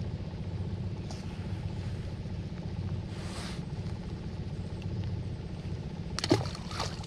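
Small trout tossed back into the river, hitting the water with a short splash a little after six seconds in, over a steady low rumble.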